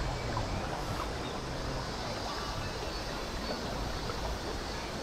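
Steady rush of flowing water, a river or stream, with no distinct events.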